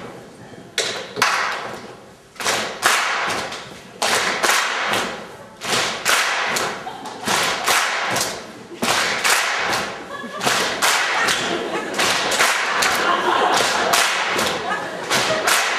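An audience in a hall making short sharp bursts of clapping and thumps on the conductor's cues, a few scattered hits at first, then coming thick and fast from about ten seconds in.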